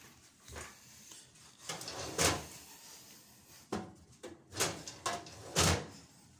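Handling noise from a handheld phone: several short rubbing and scuffing bursts at uneven intervals, the loudest about two seconds in.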